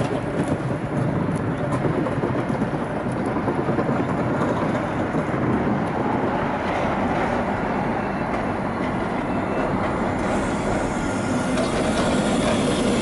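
Alstom Citadis tram rolling past close by on its rails: a steady rolling rumble of wheels on track that grows a little louder near the end as the cars go by.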